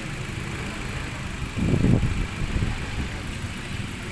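Mazda 3's four-cylinder engine idling steadily. A louder low rumble comes about a second and a half in and lasts under a second.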